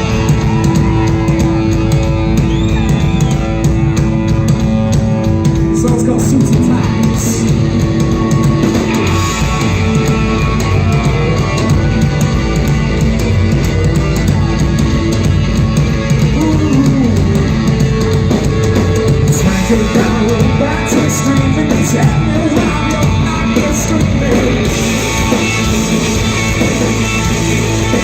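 Live rock band playing at full volume, with electric guitar and a drum kit.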